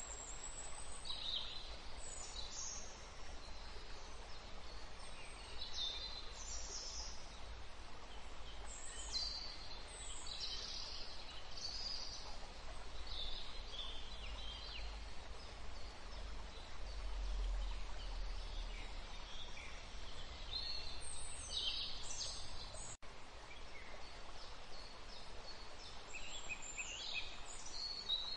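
Birds chirping on and off, short high-pitched calls, over a low steady rumble.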